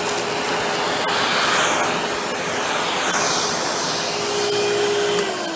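Hoover Windtunnel Plus canister vacuum (model S3639) running, with air rushing through the hose end during a suction test. Near the end its steady motor tone starts to fall as it is switched off and winds down.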